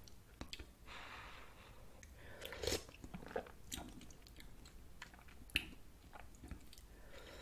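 Close-miked chewing of spicy ramen noodle soup, soft and wet, broken by scattered short clicks, with a wooden spoon working in the pot of broth. The loudest burst comes about two and a half seconds in.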